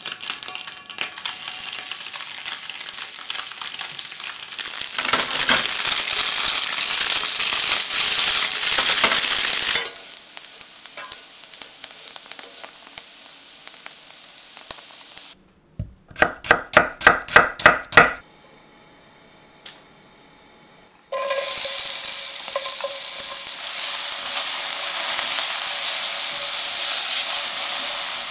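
Tofu cubes frying in hot olive oil in a frying pan, sizzling and crackling, then dying down to a quieter sizzle. Partway through comes a quick run of about eight sharp knocks. Then sliced onion hits hot oil in a stainless sauté pan and sizzles steadily while it is stirred with a spatula.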